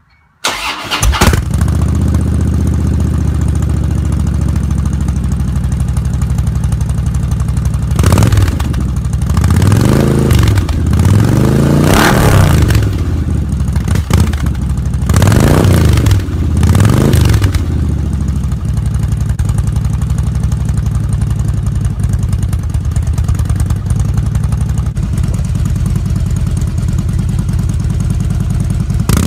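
A touring motorcycle's engine starting through Gatling-style multi-barrel "tail gunner" exhaust tips, cranking and catching about half a second in, then idling. Between about 8 and 18 seconds it is revved five times, each rising and falling back, before settling to a steady idle.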